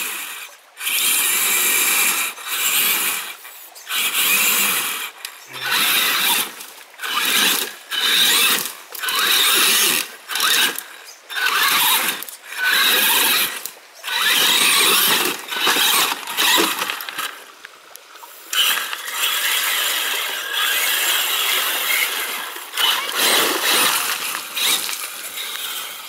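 Traxxas Summit RC truck's brushless motor (Mamba Monster 2 system, 2200kV) and geared drivetrain whining in short throttle bursts about once a second as it claws over branches, then running more steadily in the last third.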